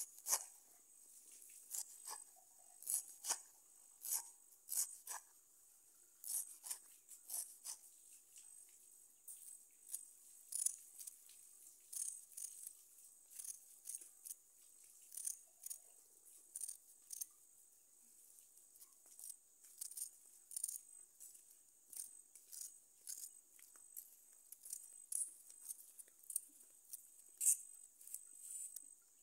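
Fresh akeyo (spider plant) leaves being pinched and torn apart by hand over a woven basket: irregular crisp snaps and leafy rustles.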